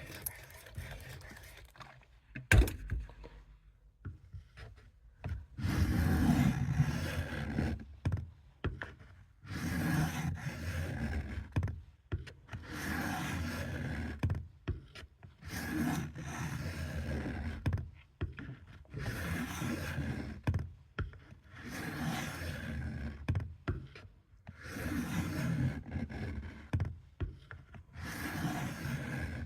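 Camillus Trailblazer knife blade drawn across a wet fine-grit sharpening stone in long scraping strokes, about one every three seconds. A single sharp knock comes a couple of seconds in, before the strokes begin.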